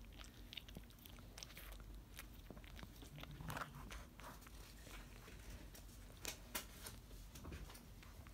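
Pekingese dog gnawing and mouthing at a foot: faint, irregular little clicks and smacks of its teeth and mouth.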